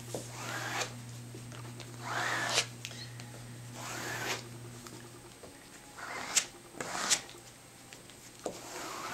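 Plastic scraper dragged across wet silk fabric, working methyl cellulose paste into the weave: about six separate scraping strokes. A low steady hum runs beneath and stops about five seconds in.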